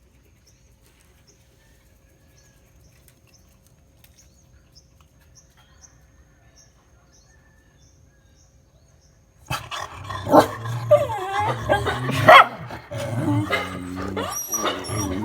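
Dogs barking and yipping. They start suddenly about nine and a half seconds in, after a quiet stretch, and keep going to the end.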